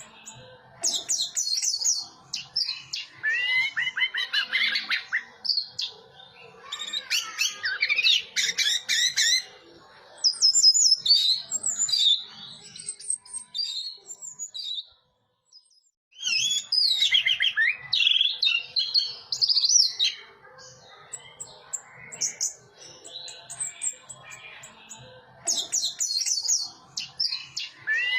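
Orange-headed thrush singing in bursts of fast, varied whistled phrases and trills, with short pauses between phrases and a brief silence about halfway through.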